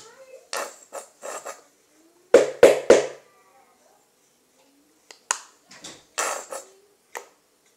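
A nearly empty plastic lotion bottle shaken and squeezed upside down to get the last of the lotion out, making a series of short bursts, the three loudest close together about two and a half seconds in.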